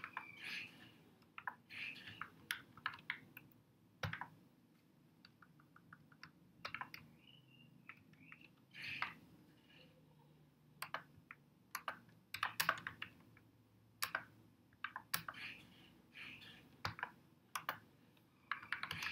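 Typing on a computer keyboard: irregular bursts of key clicks with short pauses between them, including one quick run of rapid taps a little before the middle.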